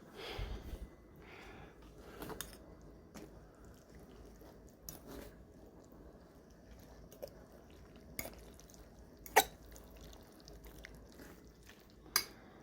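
Scattered small clicks and knocks of handling noise over faint room tone, with a few soft thumps near the start and the sharpest click about nine seconds in.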